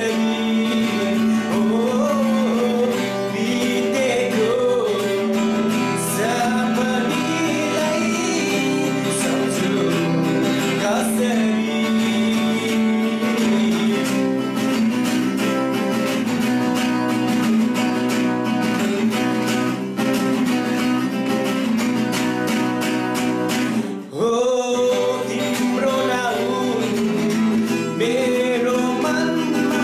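A man singing a pop song while strumming an acoustic guitar. The playing stops briefly a little past two-thirds of the way through, then resumes.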